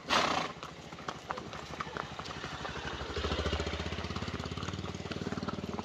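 Horse's hooves clip-clopping at a walk during a pony ride, with a short rush of noise at the very start and a low motor hum coming up about three seconds in.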